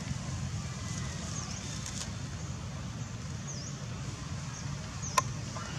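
Outdoor ambience: a steady low rumble under a short, high bird chirp repeated about every two seconds, with one sharp click about five seconds in.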